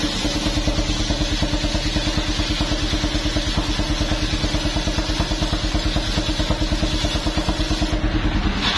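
Engine of a homemade mobile circular sawmill running with a fast, even pulse while its large circular blade rips a log lengthwise. A steady hum runs under it and fades shortly before the end.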